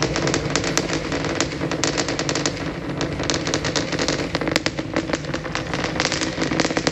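Rumble and rapid, irregular crackle of the SpaceX Super Heavy booster's Raptor engines during ascent, heard from the ground as the sound reaches the launch site.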